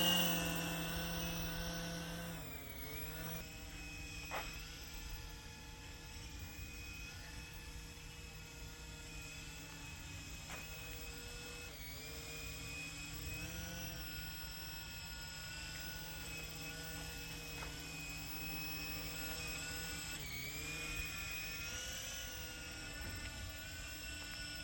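Toy remote-control helicopter's small electric motors and rotors whining as it flies. The pitch dips and recovers briefly several times as the throttle is eased and brought back up.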